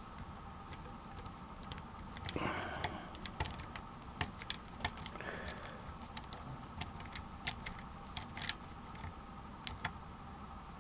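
Small metal clicks and ticks, irregular and spaced out, from a screwdriver turning the mounting screws of chrome Schaller tuners into the aluminum neck's headstock, with a couple of brief rustles of handling, over a faint steady hum.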